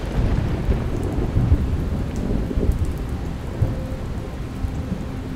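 Rain falling with a low, rolling rumble of thunder that swells and fades irregularly.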